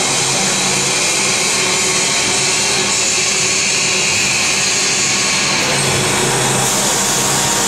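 Paper egg tray forming machine running with its vacuum pump: a loud, steady rushing hiss over a low hum.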